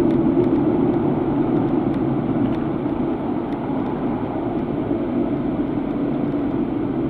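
Steady road and engine noise inside the cabin of a moving car, easing slightly in level.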